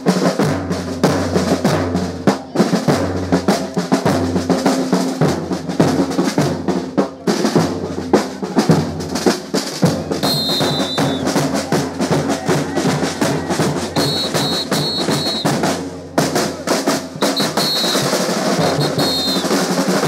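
Percussion band drumming: continuous snare-drum rolls and strokes over a pulsing bass-drum beat. From about halfway, short high-pitched tones cut through several times.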